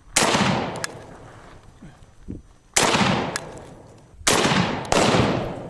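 Four rifle shots fired one at a time, the last two close together, each trailing off in a long echo: rifles being fired to check their zero.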